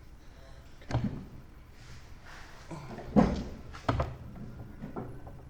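A few sharp clunks and knocks from a riding mower's deck hardware being worked loose by hand as its hanger pins are pulled. The loudest knock comes a little after three seconds in, with lighter ones about a second in and just before four seconds.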